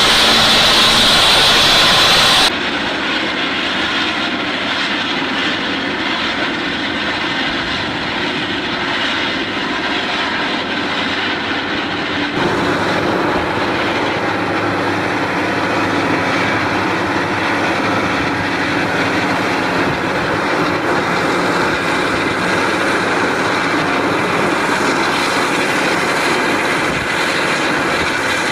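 Heavy machine engine, a large Caterpillar excavator, running steadily. The sound changes abruptly twice, about two and a half and twelve seconds in.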